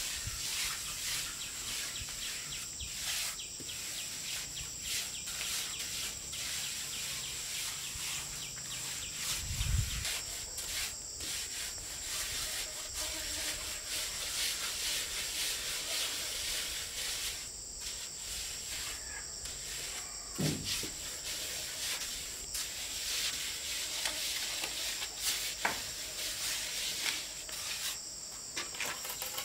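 Insects drone steadily at a high pitch, over irregular scraping and tapping of a hand tool on brick and cement. A dull thump sounds about ten seconds in.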